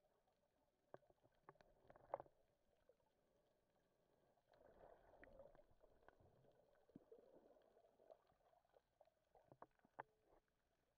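Near silence: faint muffled underwater noise, with scattered small clicks and a swell of water noise from about four and a half to eight seconds in.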